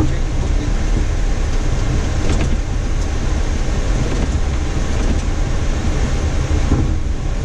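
Steady low rumble inside a Boeing 737-800 cockpit: its CFM56 jet engines and airframe running with no break or change.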